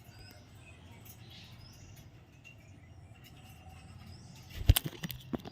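Pet parrot giving a few faint short chirps over a steady low hum, then a quick cluster of sharp knocks or clicks near the end.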